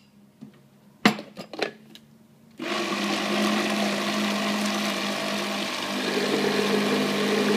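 A few clicks, then about two and a half seconds in a Fantasia countertop blender starts and runs steadily, blending a watery mix of soaked kibble and oats. Its tone shifts slightly about six seconds in.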